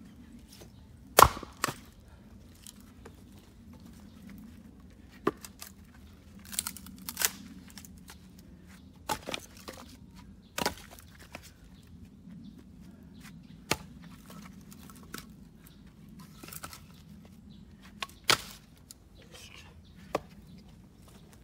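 An axe splitting black locust firewood on a chopping block. There is a hard strike about a second in, then scattered sharp knocks as further strikes land and split pieces drop and are knocked into place on the block.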